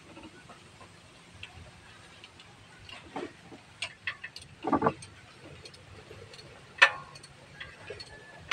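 Irregular metallic clicks and knocks of hand tools and bolts while a starter motor is being fitted under a small vehicle, with a duller knock about five seconds in and a sharp click about two seconds later.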